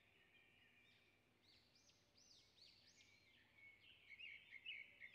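Near silence with faint, repeated chirps of small birds in the background, coming thicker and a little louder near the end.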